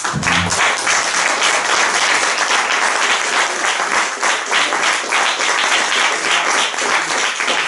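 Audience applauding, starting all at once and keeping up a steady, dense clapping.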